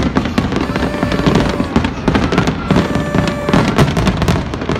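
Fireworks display: a rapid, dense series of bangs and crackles from shells bursting overhead.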